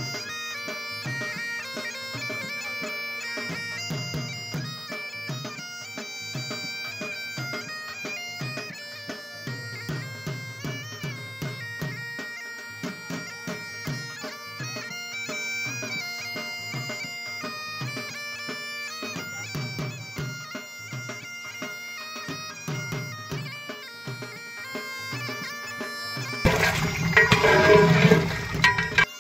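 Bagpipe tune over a steady drone, with a drum beating underneath. Near the end, a loud burst of noise covers it for about two seconds.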